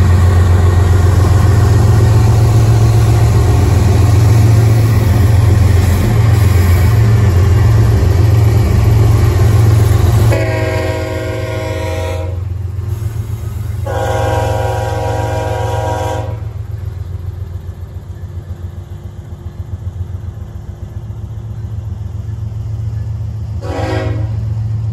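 A pair of BNSF diesel locomotives passing close by with a heavy engine rumble. About ten seconds in, the lead unit's multi-chime air horn sounds two long blasts and then a short one near the end, the opening of the long-long-short-long grade-crossing signal. Double-stack container cars roll past with a rumble of wheels on rail.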